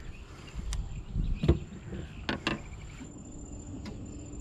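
A steady, high insect trill under a low rumble, broken by several sharp clicks and knocks.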